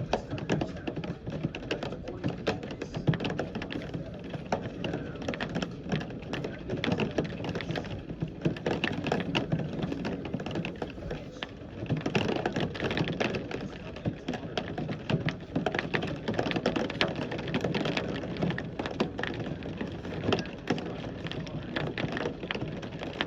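Heavy rain hitting a hard surface nearby, making dense, irregular tapping and clicking.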